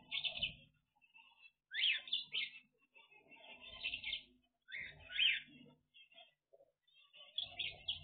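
Small aviary finches, zebra finches among them, chirping in bursts of rapid short notes, with quick upward-sweeping calls about two and five seconds in.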